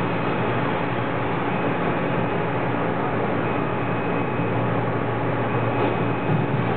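Steady background rumble and hiss with a low hum underneath, even throughout, with no distinct events.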